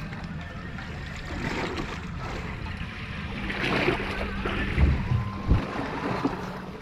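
Water sloshing around a small fishing boat's hull, with wind on the microphone, and two dull thumps about five seconds in.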